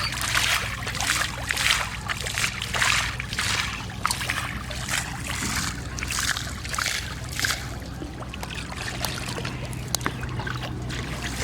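Water splashing in repeated strokes, about two a second, easing off after about eight seconds, over a steady low hum.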